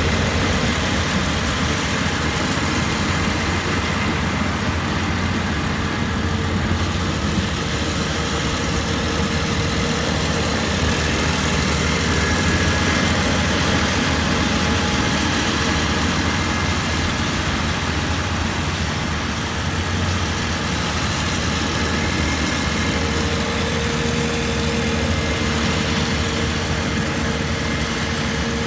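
Kubota rice combine harvester running steadily, its engine and machinery giving a continuous loud drone with a steady hum.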